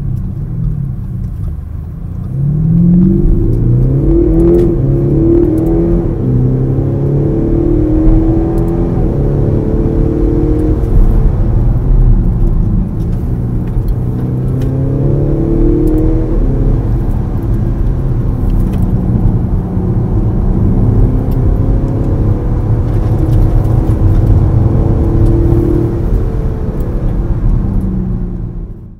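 Audi SQ5 TDI's 3-litre six-cylinder diesel with sequential twin turbochargers pulling hard, heard from inside the cabin. After about two seconds the engine note climbs and drops back several times as it shifts up through the gears, then runs on at a steadier pitch with further rises.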